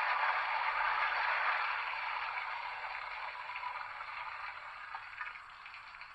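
Rushing, hissing water-taking sound effect from the sound decoder of a model class 065 steam tank locomotive. It is loudest at first and slowly fades away.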